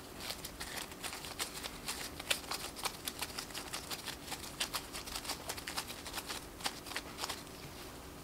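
Disposable plastic gloves crackling and rustling as hands squeeze and flatten a ball of crumbly basil scone dough, a quick run of irregular small clicks that dies away near the end.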